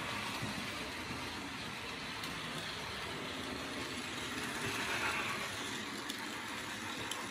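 HO-scale Fleischmann P8 model steam locomotive's Zimo digital sound decoder playing steam-engine running sounds through its small speaker as the model runs on the layout. There is a louder burst of hiss about five seconds in.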